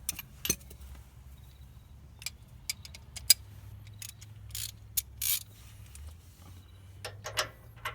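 Irregular metallic clicks and clinks of a socket wrench and camber-bolt hardware being handled and fitted, with a few short scrapes and a low steady hum underneath.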